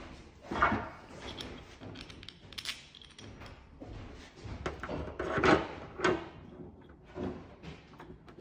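Plastic spoiler mounting blocks being handled and pressed onto a car's boot lid: a series of sharp knocks and clicks with rustling in between, the loudest about halfway through.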